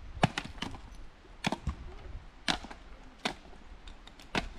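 A series of about eight sharp knocks at uneven intervals, some coming in quick pairs.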